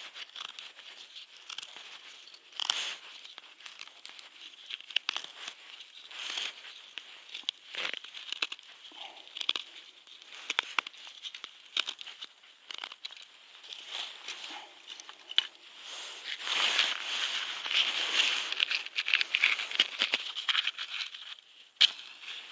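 Dry kindling of birch bark and twigs for a wood-chip camp stove crackling and crinkling, with irregular sharp snaps throughout. It grows denser and louder for a few seconds near the end.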